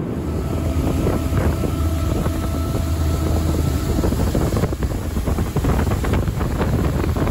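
Motorboat running at speed: a steady low engine drone under the rush of its wake, with wind buffeting the microphone, gustier in the second half.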